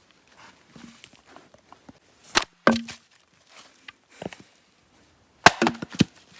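Axe chopping dry deadwood: two sharp chops about two and a half seconds in, then a quick run of three chops near the end.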